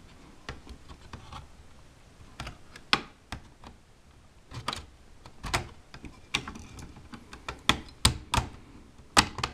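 Irregular light clicks and taps, two dozen or so spread unevenly, as a Dell Inspiron 1501's heatsink-and-fan cooler is handled and seated back onto the motherboard over the processor and graphics chip.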